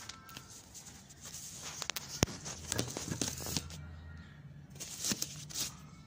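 Rustling and crackling handling noise close to the microphone, with scattered clicks and one sharp click a little over two seconds in.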